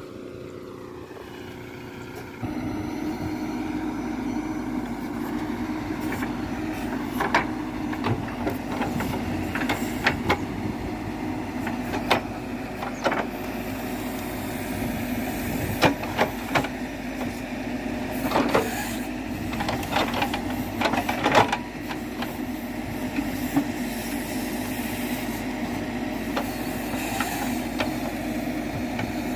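Diesel engines of farm tractors and a backhoe loader running steadily under work, with scattered metallic clanks and knocks. The engine noise steps up suddenly about two seconds in.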